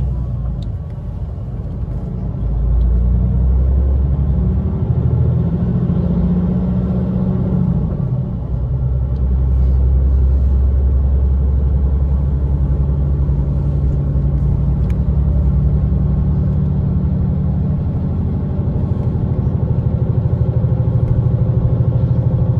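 Steady low rumble of a moving vehicle heard from inside the cabin. Its tone shifts about eight seconds in.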